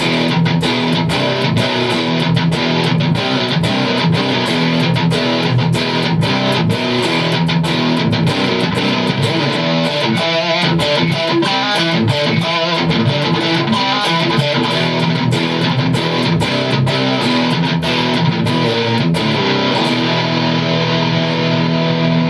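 Electric guitar played through a Pix Invoker active humbucker with a ceramic magnet: a continuous passage of picked notes and strummed chords with many sharp note attacks and a fairly clean tone.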